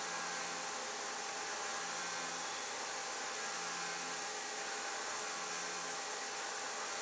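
CNC mill spindle turning a 3/8-inch end mill at 5,000 RPM, boring out a hole in aluminium under flood coolant. It makes a steady hiss with a faint high whine and a low hum that swells and fades about every second and a half.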